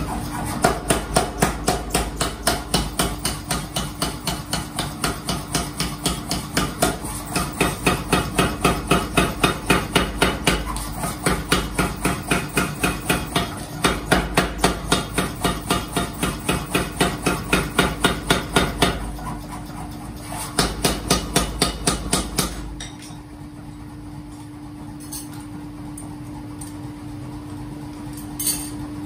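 Power hammer (a KG 60) forging a red-hot axe blank in fast, even blows, several a second. The blows break off briefly about two-thirds of the way in, run again, then stop, leaving a steady machine hum with a few light knocks near the end.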